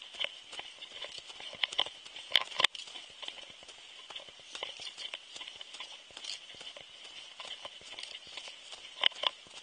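Footsteps crunching in snow: a dense run of irregular crunches and clicks, with two pairs of sharper, louder crunches about two seconds in and near the end.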